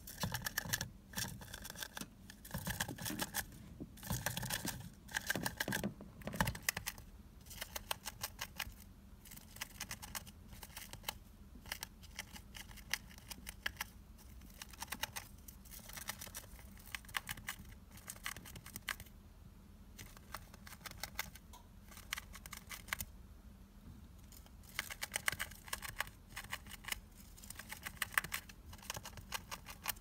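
A gerbil gnawing on a cardboard paper-towel tube: rapid, crisp crunching clicks in bursts, broken by a few short pauses.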